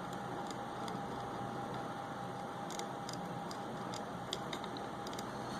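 Steady hiss with a thin, constant high hum, and scattered light ticks of small tools working on a phone's camera flex strip.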